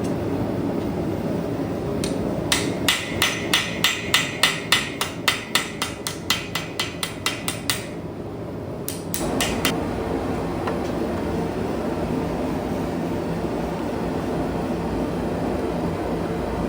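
A hammer striking steel on an anvil: a quick run of about twenty ringing blows, about four a second, then a short pause and two more. This is the railroad spike being forged. A steady low rumble runs underneath.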